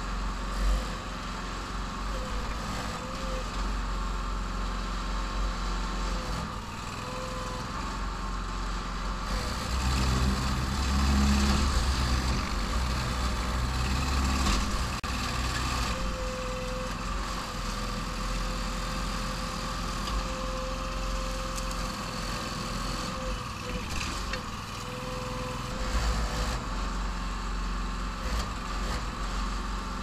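Engine of a homemade backhoe excavator running steadily while the hydraulic boom and bucket dig, with a wavering whine over it. Twice, around the first third and near the end, the engine's note grows louder and heavier as it takes load.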